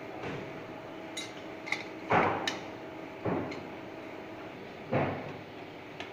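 Metal knocks and clinks from hands working on the blade-change parts inside the side frame of a Polar 115 guillotine paper cutter: a few light metallic ticks and three heavier clunks, the loudest about two seconds in. A steady hum runs underneath and stops about four and a half seconds in.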